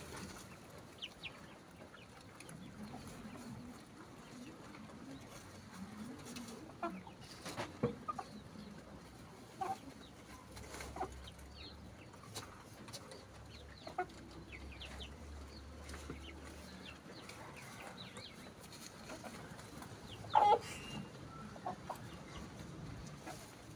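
Chickens clucking intermittently in the background: scattered short calls, with one louder call about twenty seconds in.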